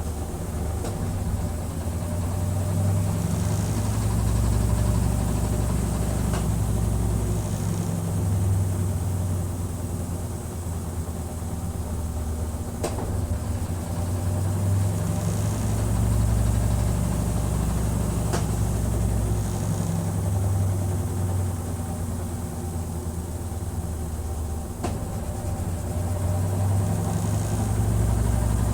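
Consul CWB09BB top-loading washing machine agitating: a low motor hum that swells and eases every few seconds, with a faint click now and then.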